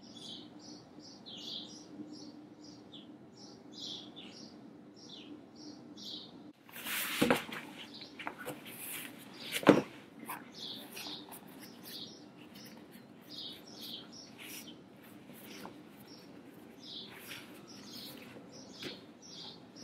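Small birds chirping over and over in short, high notes. About seven seconds in, a foam exercise mat rustles as it is picked up, with two sharp knocks; the second, near ten seconds, is the loudest.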